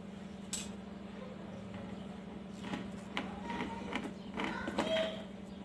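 A knife sawing horizontally through a chocolate sponge cake to split it into layers: a few short, irregular scraping strokes in the second half, over a steady low hum, with a sharp click about half a second in.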